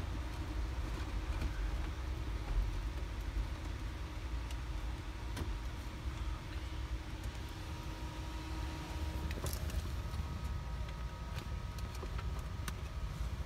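Steady low background rumble with a faint steady hum and a few light clicks.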